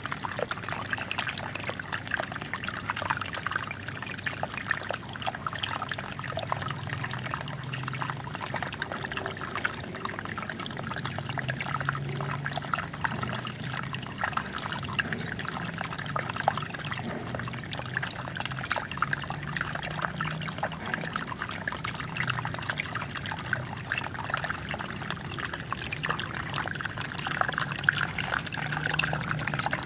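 Water of a waterfall falling and splashing steadily, with a low hum that comes and goes underneath.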